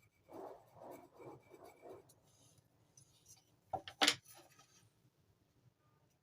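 About five quick rhythmic scraping strokes, roughly three a second, as of hand work on a workpiece, followed about two seconds later by two sharp knocks, the second the louder.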